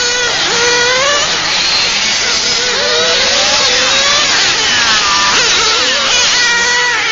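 Small two-stroke engines of radio-controlled model racing cars, several at once, their high-pitched notes rising and falling as the cars accelerate and lift off through the corners.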